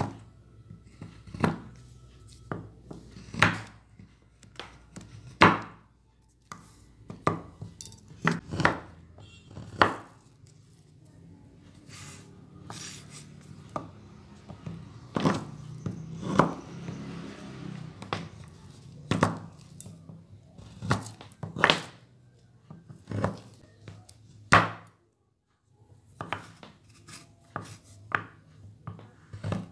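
A large kitchen knife chopping a bar of dark chocolate on a wooden board: sharp, irregular knocks a second or two apart as the blade cuts through and strikes the board.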